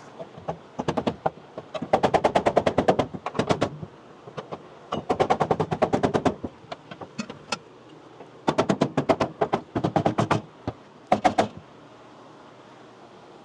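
Rapid mechanical hammering in four bursts of evenly spaced sharp strikes, about eight to ten a second, the last burst short, with pauses between.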